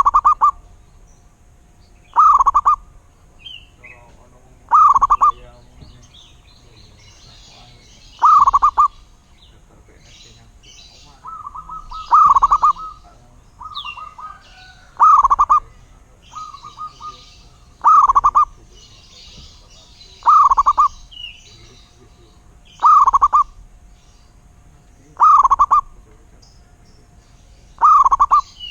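Zebra dove (perkutut) cooing: a short burst of rapid notes repeated every two to three seconds, about eleven times. Fainter high chirps of other small birds sound between the coos.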